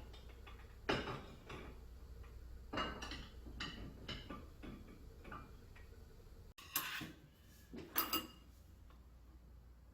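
Irregular light clinks and knocks of dishes and utensils being handled, with a few louder clatters about a second in and again near the end.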